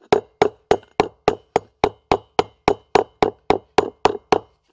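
Plastic mallet tapping a new sealed wheel bearing into the hub of a zero-turn mower's front caster wheel, in quick even strikes of about three and a half a second, each with a short ring. The bearing is being seated evenly in its bore.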